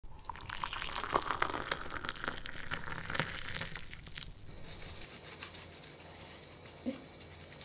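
Fingers rubbing and brushing over the charred kernels of a roasted corn cob, a dry scratchy crackling for about the first four seconds that then fades to fainter rustling.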